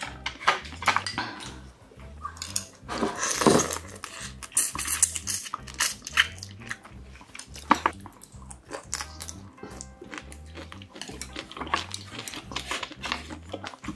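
Background music with a steady low beat, under close-up eating sounds: biting and chewing of a shrimp, and chopsticks and a spoon clicking against bowls and plates.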